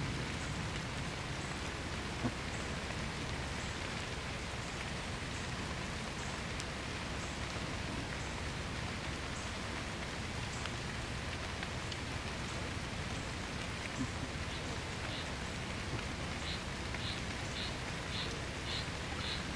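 Steady, even hiss of light rain falling on the ground and leaves. In the last few seconds a high chirp repeats about twice a second.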